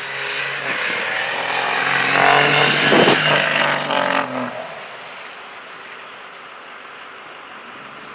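Mega mud truck's engine revving hard as it powers through mud, its tyres throwing a heavy spray of mud. A little over four seconds in, the engine lets off and the sound drops away to a quieter steady noise.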